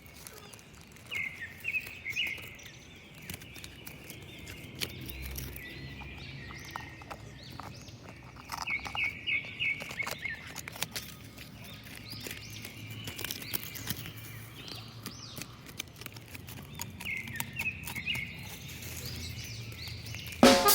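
Short runs of high bird-like chirps, three times, over faint outdoor background noise with scattered light clicks; music cuts in at the very end.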